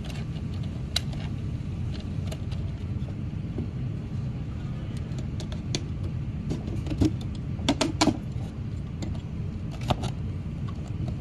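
Scattered clicks and knocks of hands handling a wooden watch winder box, its wiring and plastic parts, loudest in a short cluster past the middle, over a steady low background hum.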